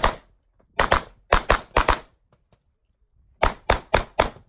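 Rapid pistol fire from an Open-division competition pistol: sharp shots in quick pairs and strings, about ten in all, with a pause of about a second and a half in the middle while the shooter moves to the next position.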